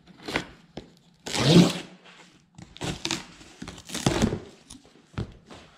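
Cardboard shipping box being torn open: packing tape slit and the flaps pulled apart in several short tearing and crinkling sounds, the loudest about a second and a half in.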